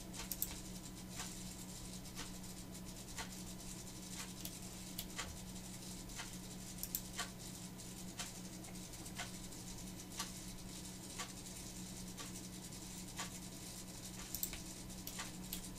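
Faint computer mouse clicks, about one a second, placing points while sketch lines are drawn, over a steady low electrical hum.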